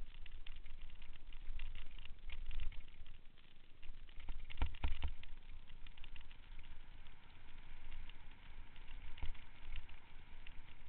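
Bicycle rolling fast down a dirt trail: tyres rumbling over dirt and leaves, with rattles and knocks as the bike jolts over bumps, the hardest knocks about halfway through.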